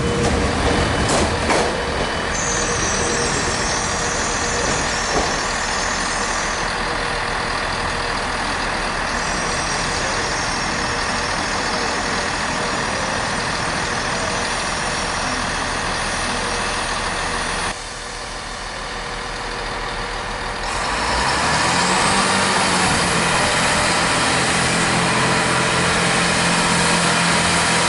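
Class 158 Sprinter diesel multiple unit running steadily at the platform. About 18 seconds in the sound drops suddenly, and a few seconds later its diesel engines power up to a louder, steady running note with a rising whine, as the unit gets under way.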